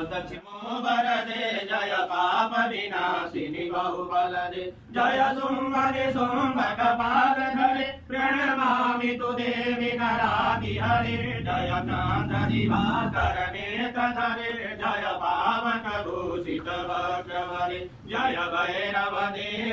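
Hindu priests, several men together, chanting Sanskrit mantras of the puja in long recited phrases, with short breaks for breath about 5, 8 and 18 seconds in.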